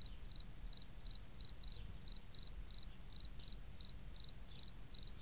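Cricket chirping steadily, about three short high chirps a second, over a faint low hum.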